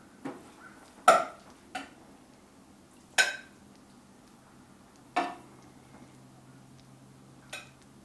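A metal spoon clinking against a pot and plate while rice is served: about six separate sharp clinks with a short ring, a second or two apart, the loudest about a second in.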